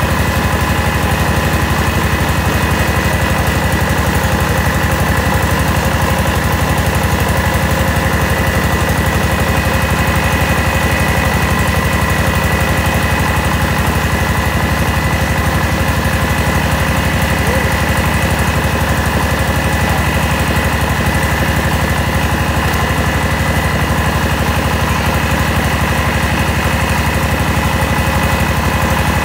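Mobile rice huller running steadily under load, its engine and milling mechanism humming at an even speed while hulling paddy.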